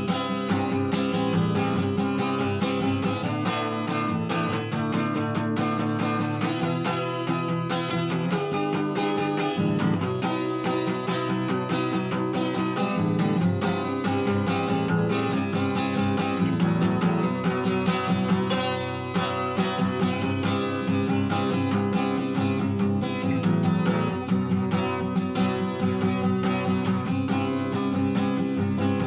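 Acoustic guitar music: chords played in a steady, even rhythm.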